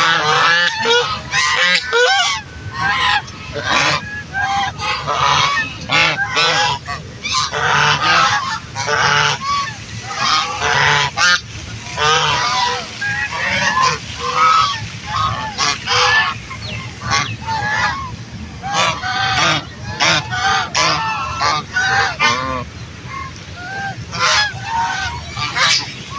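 A flock of ducks quacking and calling continuously, many calls overlapping with hardly a pause.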